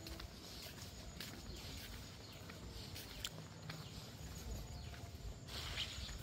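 Faint outdoor ambience: a low rumble with scattered short clicks and chirps, and a brief rustle about five and a half seconds in.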